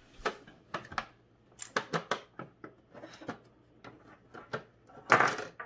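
Irregular small plastic clicks and knocks as hands fumble at a plastic toy vending machine's pickup door and handle its plastic pieces, with a short louder rushing burst about five seconds in.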